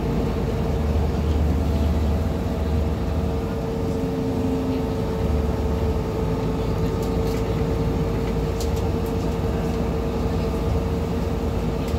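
Solaris Urbino 15 III city bus heard from inside the passenger cabin while driving at a steady speed: low running rumble with a steady whine from the drivetrain, and a few faint rattles in the second half.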